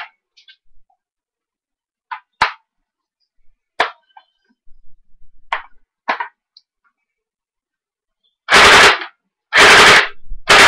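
M85 G36C airsoft BB gun fired semi-automatic: single sharp cracks, one at a time with uneven gaps of one to two seconds. Near the end come several loud, longer noisy bursts.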